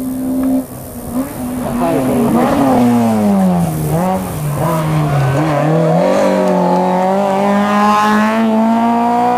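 Hill-climb race car's engine: the revs fall as it slows for a hairpin, then climb steadily in one long pull as it accelerates out and up the hill.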